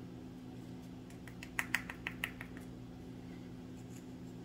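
A quick run of small sharp clicks and taps, about half a dozen in just over a second, as a metal sphere bath bomb mold is worked open by hand, over a steady low electrical hum.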